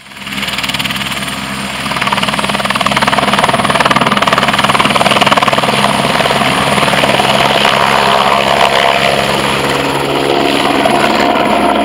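Airbus AS350 Écureuil helicopter lifting off and flying low right overhead, its turbine and rotor loud with a fast, even blade chop. The sound builds over the first few seconds and then holds steady as it climbs away.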